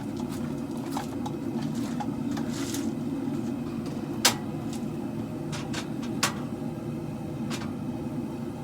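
Propane forge burners running with a steady low rushing noise, with a few sharp metallic clicks on top, the loudest about four seconds in.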